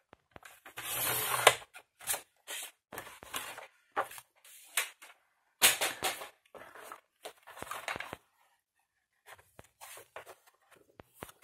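Sliding paper trimmer cutting a sheet of white cardstock: a half-second swish of the blade about a second in, ending in a sharp click. Then a run of short rustles and taps as the cut sheets are handled.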